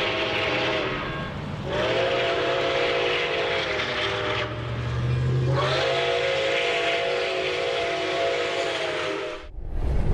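Steam locomotive chime whistle sounding in long blasts, several tones at once, each new blast sliding slightly up in pitch as it starts, with a hiss and a low rumble beneath. The whistle cuts off near the end and a short low boom follows.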